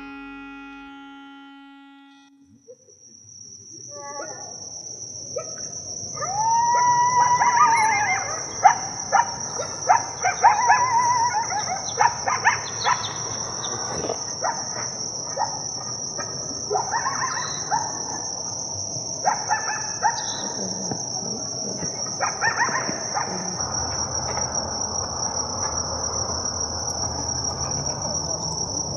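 A steady high-pitched insect buzz starts a couple of seconds in and holds without a break. Bird calls and short chirps sound over it for several seconds near the middle.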